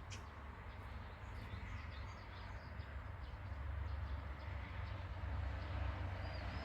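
Large dump truck's diesel engine running with a steady low rumble that grows a little stronger about halfway through. Faint bird chirps sound over it.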